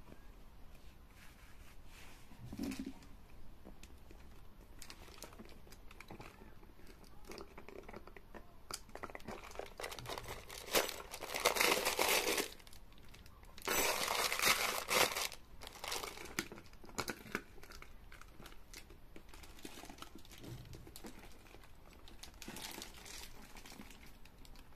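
Handling noise from a jelly handbag being opened and shown: scattered light taps and rustles, with two loud stretches of plastic wrapping crinkling about halfway through, each lasting a couple of seconds.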